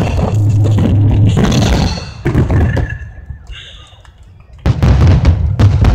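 Fireworks display: a dense volley of aerial shell bursts making a continuous rumble of bangs. It dies away about two seconds in, then a new barrage starts suddenly with loud bangs near the end.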